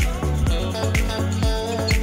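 Background music with a steady beat, about two beats a second, over a bass line.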